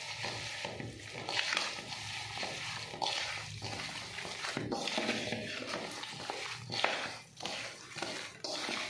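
A hand squishing and kneading raw boneless chicken breast through a wet spice-and-oil marinade in a steel bowl: irregular wet squelches, about one or two a second.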